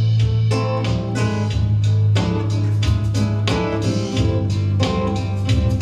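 Instrumental music with no singing: a guitar strummed in a steady rhythm over a sustained low bass note.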